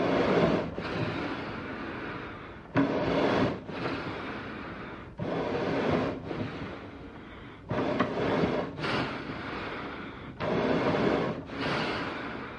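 An animal's heavy breathing: rough, noisy breaths that come about every two and a half seconds, each starting abruptly and trailing off.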